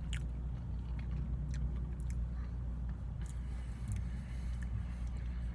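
Quiet chewing with a few faint mouth clicks over a steady low hum.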